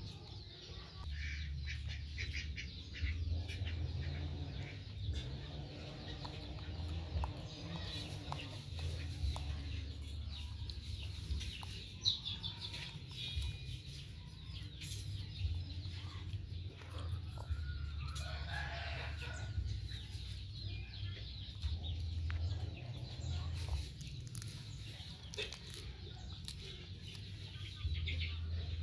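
Chickens clucking over a steady low rumble, with scattered small clicks.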